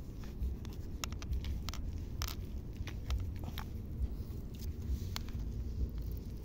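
A hand digging into wet tidal mud: scattered squelching clicks and smacks at an irregular pace, over a steady low rumble.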